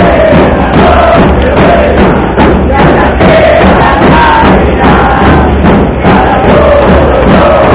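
Football supporters' group chanting in unison, a large crowd singing loudly over a steady low beat.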